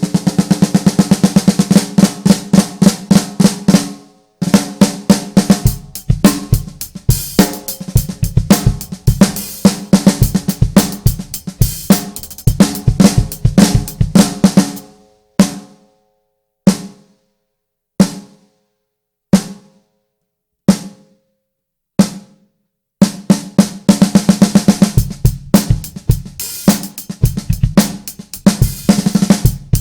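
A 6x14 snare drum with a 1.5 mm steel shell being played: a roll that swells at the start, fast runs of strokes, then about six single hits each left to ring, a little over a second apart, before fast playing resumes.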